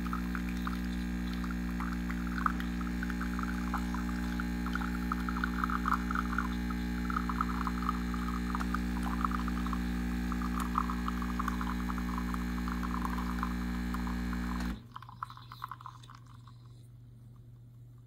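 CASABREWS 3700 espresso machine's 20-bar pump humming steadily while pulling a double shot, with espresso streaming and sputtering into the cup. The pump cuts off suddenly about 15 seconds in as the shot finishes.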